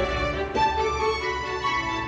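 Background music with sustained melodic instrument notes.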